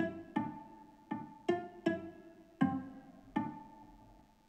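Soundtrap's 'String Section Pizzicato' virtual instrument playing back a simple melody from the piano roll: about seven plucked string notes, one at a time, each starting sharply and dying away, the last left ringing for about a second.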